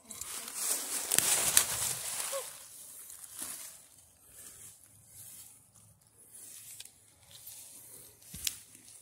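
Footsteps through deep, dry fallen leaves, rustling and crunching: heaviest in the first two seconds, then in short scattered shuffles. One sharp crack near the end.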